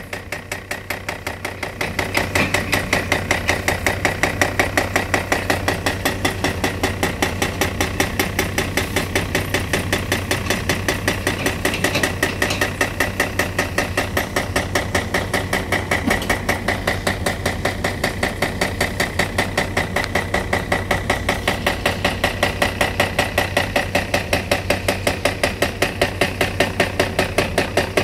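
Atlas Copco hydraulic hammer on a CAT excavator pounding bridge concrete in rapid, even blows, several a second, over the steady drone of the excavator engines. The blows get louder about two seconds in.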